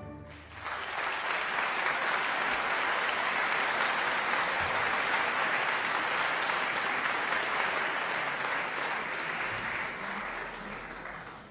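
Audience applauding at the end of a concert band piece: the band's final chord cuts off, and steady clapping starts about half a second later, then tapers off near the end.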